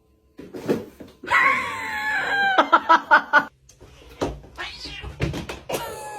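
Domestic cat meowing and yowling, with one long wavering yowl starting about a second in, then shorter calls.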